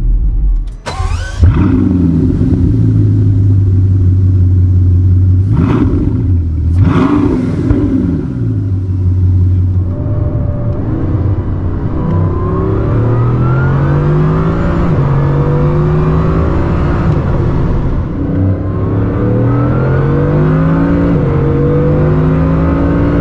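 Hypercar driving at speed: its drive note holds steady, then repeatedly rises in pitch and levels off as it accelerates. Brief loud surges come about a second in and around six and seven seconds.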